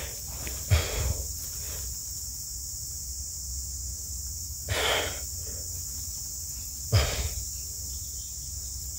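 Steady chirring of crickets and other insects, broken three times by short breathy noises.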